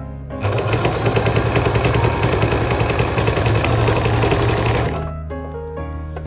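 Electric sewing machine stitching at speed: a fast, even run of needle strokes that starts just under half a second in and stops after about four and a half seconds.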